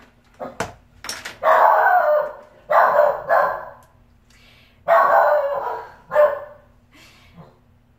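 Small pet dog barking in about four loud bursts over several seconds: a talkative dog vocalizing.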